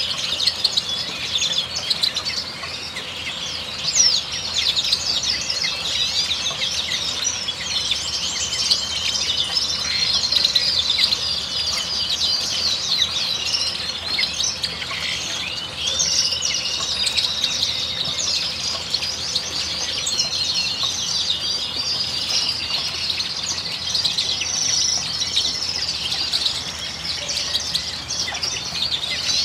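A dense chorus of many caged finches chirping and trilling at once, high-pitched and without a break, the calls overlapping so that no single bird stands out.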